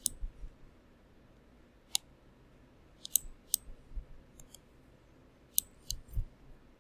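Computer mouse button clicking: irregular sharp clicks, about a dozen, some in quick pairs.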